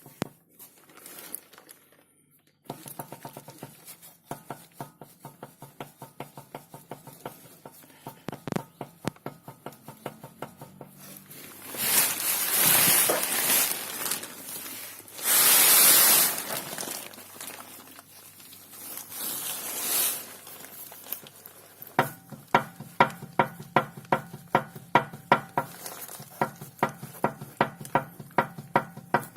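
Nissan Pathfinder R50 half-shafts (drive shafts) knocking in a regular rhythm, about three knocks a second, over a steady low hum. The knock is the fault that the drive shafts have. Loud stretches of rushing noise come in the middle, and the knocks are sharpest near the end.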